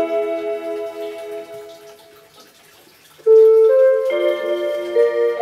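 Electronic melody chime of a Seiko quartz wall clock with 18 melodies, playing bell-like electronic notes. One tune fades out about two seconds in, and after a short pause a new tune starts loudly a little after three seconds in.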